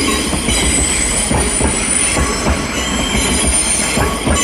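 Class 158 diesel train moving through curved track, its wheels squealing high and steady over a rumble with irregular clunks from the wheels on the rails.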